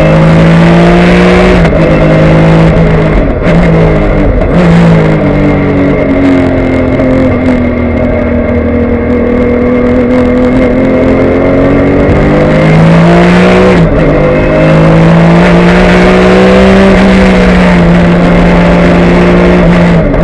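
Porsche 996 GT3 Cup race car's naturally aspirated flat-six at full race pace, heard from inside the cockpit. The engine note breaks through several quick gear changes in the first few seconds and sags and recovers through a long corner. It then climbs and drops sharply at an upshift about 14 seconds in, and pulls hard again.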